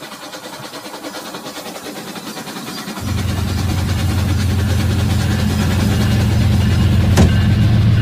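Rail King toy trains running on plastic track: a rhythmic motor and wheel clatter that turns into a much louder steady drone about three seconds in as a locomotive comes close, with one sharp click near the end.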